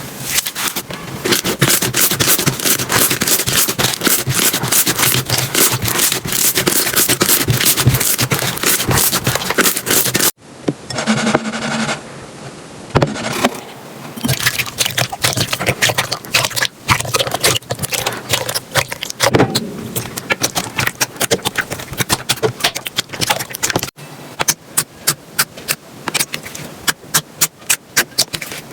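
Slime being squeezed and pressed by hand, giving dense crackling and popping clicks. The sound changes abruptly twice: softer and more muffled about ten seconds in, then a run of sharp, separate clicks near the end.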